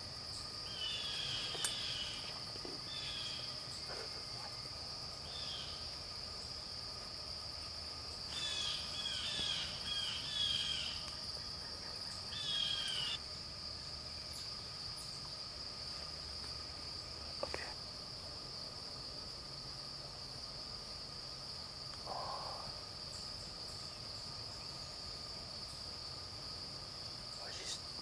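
Steady chorus of crickets, a continuous high shrill, with bursts of quicker chirping calls on top in the first half.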